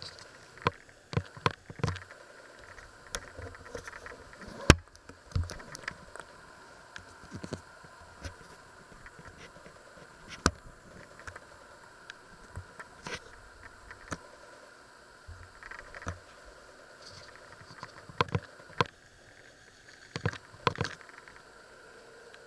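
Scattered light clicks, taps and rustles from things being handled on a kitchen worktop and the camera being moved, with one sharp click about five seconds in and small clusters of knocks near the end, over a faint steady background hum.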